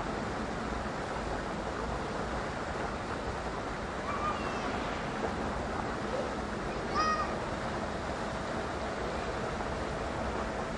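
Steady outdoor background noise with two short, high calls, the first about four seconds in and a slightly louder one about seven seconds in.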